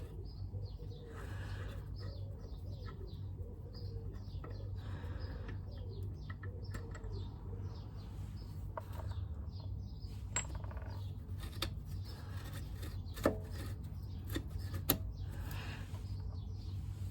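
Small birds chirping and a pigeon cooing during the first several seconds. Later come a few sharp clicks and clinks from tools being worked on a motorcycle's rear brake.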